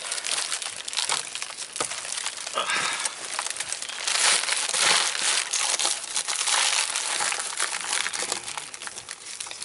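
Plastic crinkling and rustling as a black trash bag and clear plastic sheeting are handled and pushed over a round metal vent collar, loudest about halfway through.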